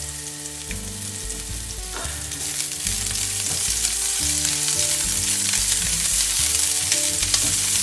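Sliced onion sizzling in hot vegetable oil in a non-stick frying pan, stirred with a spatula. The sizzle grows steadily louder as the onion heats.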